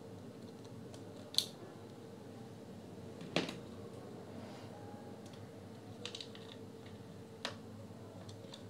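A few sharp, small clicks and taps of plastic parts being handled while the light-show sensor's flex cable is worked loose from a JBL Pulse 2 speaker, over a faint steady hum. The loudest click comes about a third of the way in, with a quick little cluster and one more click later.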